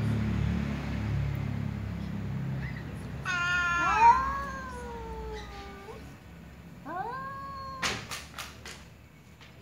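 Two cats face to face: a low growl, then a long drawn-out yowl falling in pitch about three seconds in, and a shorter meow rising then holding about seven seconds in. A few sharp clicks follow near the end.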